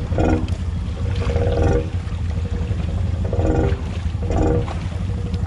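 ATV engine labouring in deep swamp mud, a steady low drone broken by four short revs as the rider throttles against a submerged obstacle the quad is hung up on.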